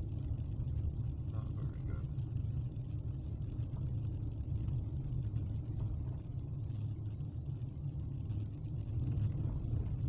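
Steady low rumble of road and engine noise heard inside a moving Kia Forte's cabin.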